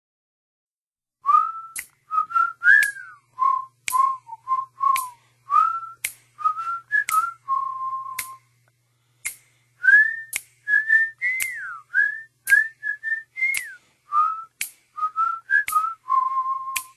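A person whistling a tune with short notes and small pitch slides, starting about a second in. A faint click marks the start of many notes.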